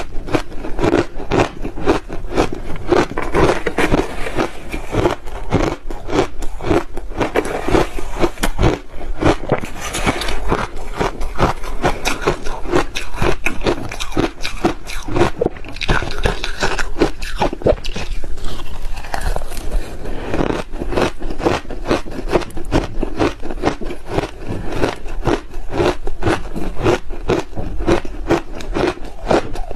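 Crushed ice being bitten and chewed close to a lapel microphone: a dense, continuous run of crisp crunches, broken by a smoother stretch a little past halfway.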